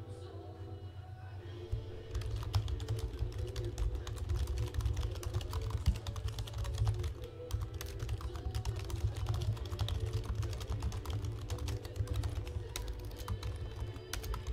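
Fast typing on a computer keyboard: a dense run of key clicks starting about two seconds in, over quiet background music.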